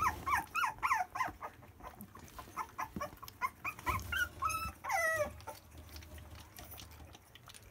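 Young puppies whimpering and squealing: a quick run of short, high, wavering squeaks in the first couple of seconds, then scattered cries that stop about five and a half seconds in.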